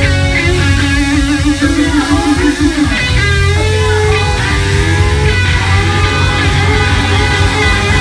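Live rock band playing loud and steady: distorted electric guitars over bass and drums, with a male voice singing into a microphone.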